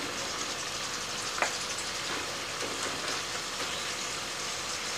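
Pork and bell pepper stir-fry sizzling steadily in a pan with a little added water, stirred with wooden spatulas; a single light tap about a second and a half in.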